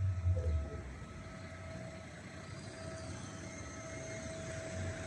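Mercedes-Benz CLK230 (W208) four-cylinder engine: a low engine rumble that dies away in the first second, leaving a faint steady engine sound with a thin whine.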